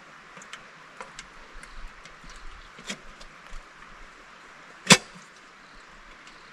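Scattered light clicks and ticks, with one loud, sharp crack about five seconds in.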